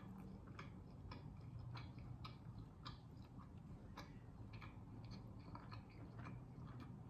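Faint, closed-mouth chewing of a soft, cheese-topped deep-dish pizza crust: small soft clicks about twice a second, over a low steady hum.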